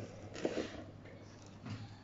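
Faint handling of open cardboard boxes: a couple of soft, brief rustles, one about half a second in and one near the end.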